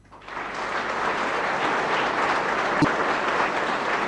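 Audience applauding, swelling up within the first half second and then holding steady, with a single thump about three seconds in.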